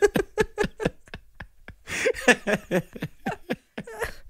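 People chuckling and laughing, with a brief lull about a second in before the laughter picks up again.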